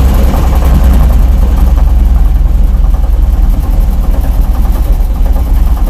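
Car engine idling under load in fifth gear with the brake held as the clutch is let out, with a rhythmic knock from the drivetrain that grows under the load. The knock sits around the driveshaft between engine and gearbox, where a universal joint replaced a CV joint; its exact origin is unclear to the owner.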